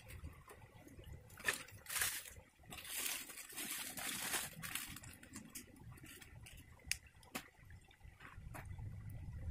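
Dry leaves rustling and sticks clicking and snapping as a small fire is laid by hand, with a stream trickling underneath. The rustling comes in bursts in the first half, with separate sharp clicks scattered through.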